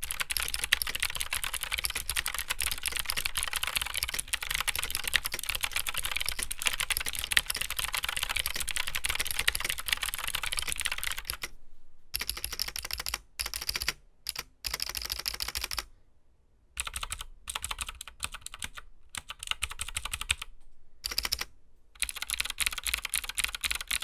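Lofree Dot mechanical keyboard with clicky Gateron Blue switches being typed on fast with both hands, a dense run of sharp clicks for about eleven seconds. After that, keys are pressed one hand at a time in short runs of clicks, broken by brief silences.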